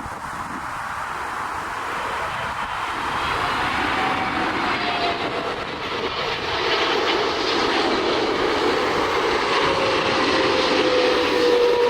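Boeing 777 jet airliner on landing approach, its engines whining and rushing and growing steadily louder as it comes closer, with a tone that slides slightly lower near the end as it passes.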